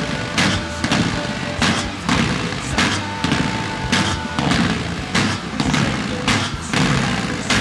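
Music soundtrack with a steady thumping drum beat, about two beats a second.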